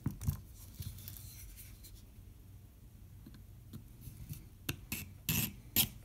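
Handling of a Swiss Army knife and a Victorinox knife sharpener: faint clicks and rubbing, then two short scraping strokes about half a second apart near the end as the blade is set to the sharpener.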